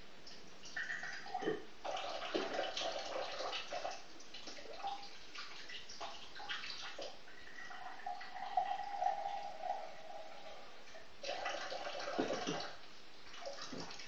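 Water running from a kitchen tap into a container, in several separate bursts.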